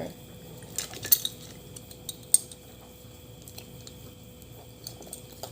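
A few sharp clicks and clinks of cutlery and dishes over a quiet background, a cluster about a second in and a single sharp one a little after two seconds.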